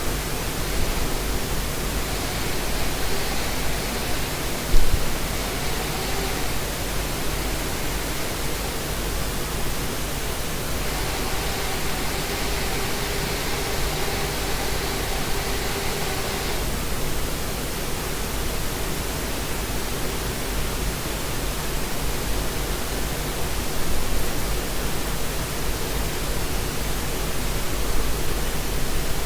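Small fischertechnik electric motor driving the monorail carriage's propeller under manual control, whirring in two spells of about four and six seconds, over a steady hiss. A single knock sounds about five seconds in.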